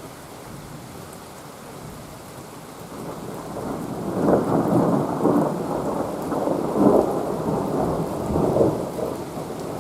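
Steady rain, then from about three seconds in a long roll of thunder that rumbles in several surges, loudest around the middle.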